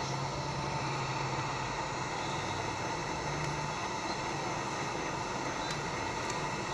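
Hot-air gun blowing steadily, a constant rushing whir with a faint hum, as it heats the tablet's glass to soften the adhesive under the digitizer. A few faint clicks near the end.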